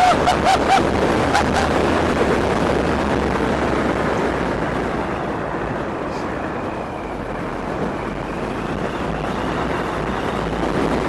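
Wind rushing over the microphone with road noise as a dual-motor electric kick scooter is ridden fast on both motors. The noise runs steadily throughout.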